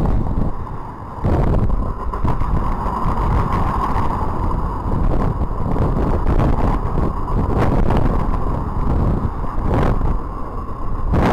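Freight train of flatcars loaded with military vehicles rolling past: a steady rumble of wheels on rail with scattered clicks and a sustained high ringing tone, mixed with wind noise on the microphone.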